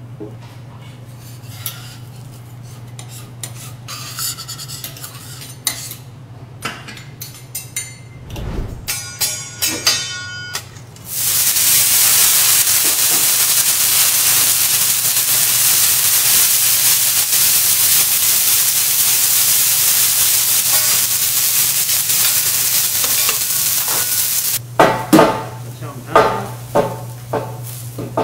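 Bean sprouts sizzling on a hot teppanyaki steel griddle: a loud, even hiss that starts suddenly about eleven seconds in as they are slid off a plate and cuts off after about thirteen seconds. Before it there are scattered metal clinks of spatula and dishes, and near the end a quick run of sharp knocks.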